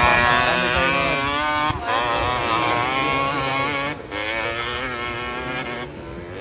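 Motocross dirt bike engine revving hard, its pitch wavering up and down, with two brief dips about two and four seconds in.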